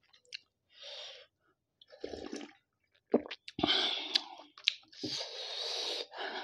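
Chicken soup being slurped from a bowl in about four short sips, with a couple of sharp clicks between them.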